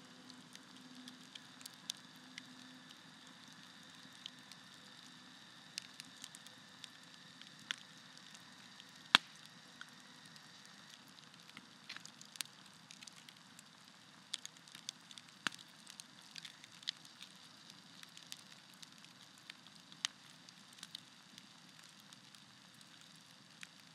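Wood campfire burning, with irregular crackles and sharp pops over a faint steady hiss; the loudest pop comes about nine seconds in.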